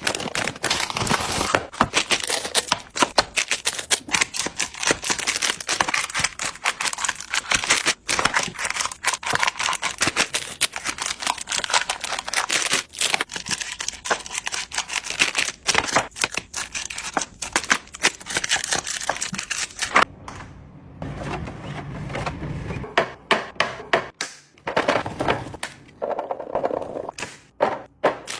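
Beads pouring into a container, a dense rapid clatter of small hard pieces that stops about twenty seconds in, followed by softer handling sounds and a few scattered clicks.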